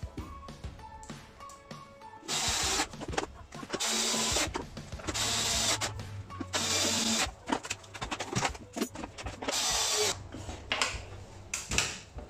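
Cordless drill-driver driving screws into a plastic vacuum-cleaner motor housing cover, running in about five short bursts of under a second each, with clicks and handling in between. Quiet background music plays in the first couple of seconds.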